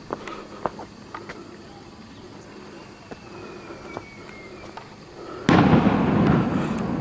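Footsteps on stone steps, then, about five and a half seconds in, a sudden loud rushing noise that fades slowly.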